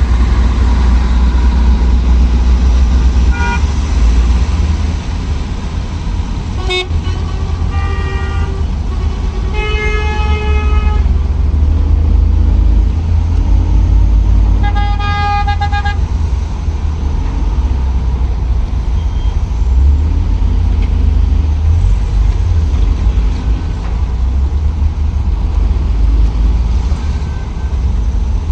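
Danfo minibus engine running with a steady low rumble in moving traffic, while vehicle horns honk several times: short toots and two longer blasts about ten and fifteen seconds in. A sharp click sounds about seven seconds in.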